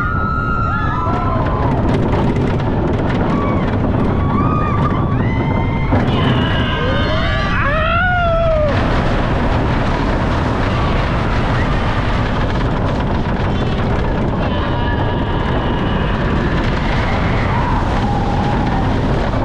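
Cheetah Hunt launched steel roller coaster train in motion: a steady rush of wind over the microphone and the train's running rumble. In the first half, riders let out rising-and-falling cries.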